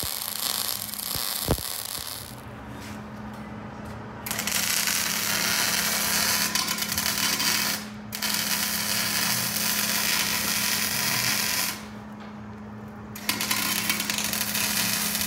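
Electric arc welding on steel beams: the arc's crackling sizzle in three runs of a few seconds each, with short breaks between beads, over a low steady hum.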